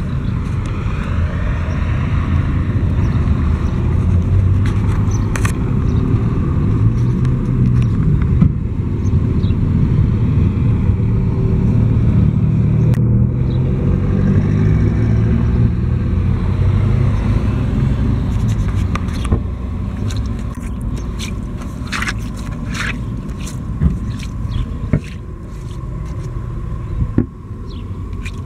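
Steady low rumble of road traffic, with an engine passing through the middle. In the second half come a run of short, sharp scrapes and clicks.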